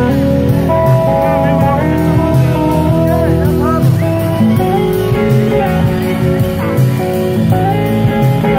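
Live blues-rock band playing: electric guitars over drums with saxophone and trombones, held notes and lines that glide in pitch.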